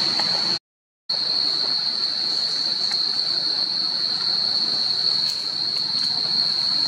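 Steady, high-pitched drone of forest insects, with a faint hiss around it. It drops out for about half a second shortly after the start, then resumes unchanged.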